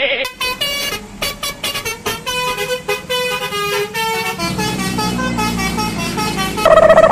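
Basuri-style telolet bus horn playing a quick melody of short notes at changing pitches. A low hum comes in about halfway, and near the end a long, loud horn note is held for about a second.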